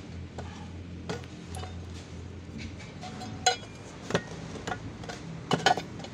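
Steel roster-block mould being assembled by hand: a few sharp metal clinks and knocks as its side plates are set, handled and clamped, the loudest about halfway through and a double knock near the end, over a steady low hum.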